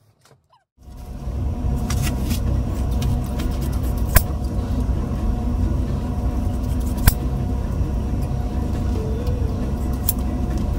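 A steady low rumbling hum begins about a second in and holds on. Three sharp clicks, about three seconds apart, are kitchen scissors snipping through raw chicken thighs.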